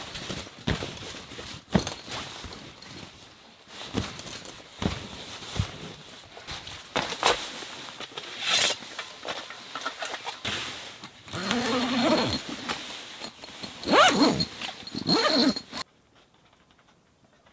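A dog whining and whimpering in several short rising and falling cries in the second half, after a run of scattered knocks and rustles. The sound cuts off abruptly near the end.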